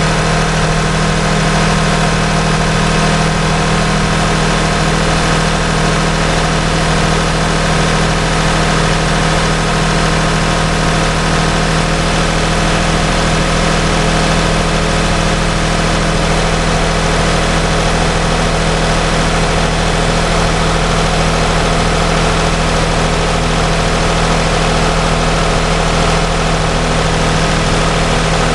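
Toyota 1MZ V6 engine idling steadily just after a cold start. It runs evenly, without the knock under the valve cover that shows only at middling revs.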